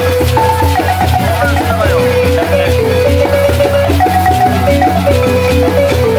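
Senufo kapala balafon playing fast, repeating melodic patterns of struck wooden-bar notes over a steady low bass figure.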